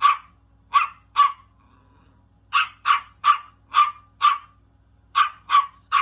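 Small Yorkshire terrier barking in short, sharp, high-pitched yaps, about eleven in three quick bursts with short pauses between them.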